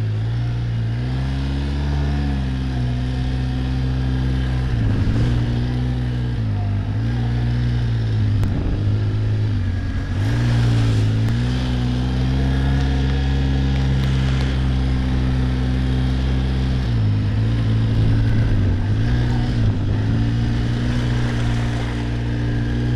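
Quad (ATV) engine running under way in four-wheel drive, its pitch dipping and coming back up several times as the throttle eases and opens again, with a steady stretch in the middle.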